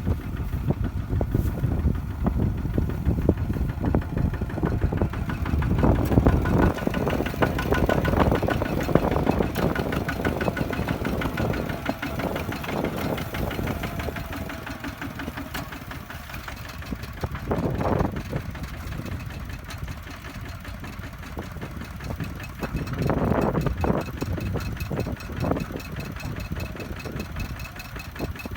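Single-cylinder diesel engines of two-wheel walking tractors running with a fast knocking beat, swelling louder in surges a few times as the throttle is opened.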